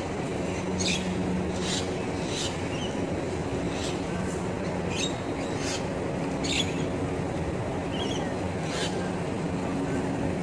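Outdoor street ambience: a steady low drone of traffic or machinery, with short high chirps coming about once a second.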